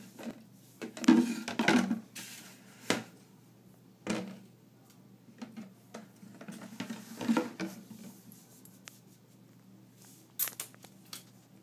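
Irregular rustling, scraping and small knocks as a pet dwarf rabbit moves about in a bathroom sink and is handled close to the microphone. The loudest rustles come about a second in, with sharp knocks around three seconds and near the end.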